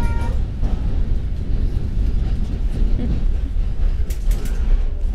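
Steady low rumble of a moving vehicle heard from inside the cabin, with a few clicks and rattles about four seconds in. A Japanese Chin puppy's high whine cuts off just as it begins.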